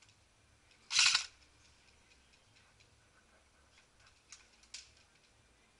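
A short hissing burst about a second in, then two sharp clicks near the end, typical of airsoft guns firing.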